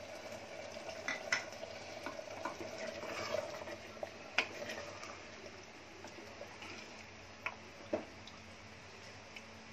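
Wooden spatula stirring thick mutton curry in an aluminium pressure cooker: soft wet stirring with a few light knocks of the spatula against the pot.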